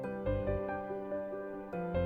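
Instrumental background music: a melody of held notes over a low pulsing bass.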